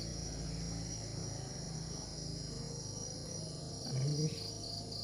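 Crickets chirping in quick, evenly spaced pulses, about three a second, over a steady high trill from other insects, with a low hum underneath.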